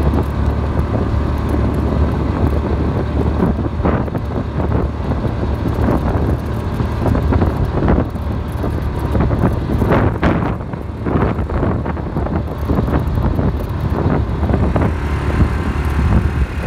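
A vehicle driving along a gravel road: a steady low rumble, with irregular crunches and rattles from the gravel throughout, busiest about ten to twelve seconds in.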